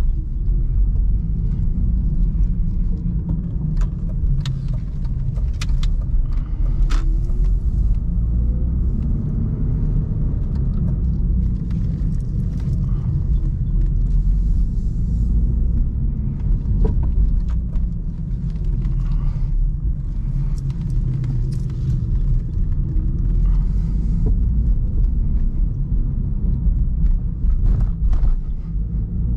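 1999 BMW 316i E46's four-cylinder engine heard from inside the cabin while driving slowly, a steady low rumble with slight rises and falls in pitch. Scattered sharp clicks and knocks sound over it.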